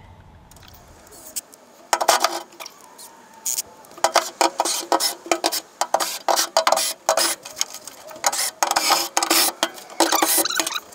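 Ryobi cordless power driver running in repeated short bursts, starting about two seconds in, backing out the gas tank's mounting bolts.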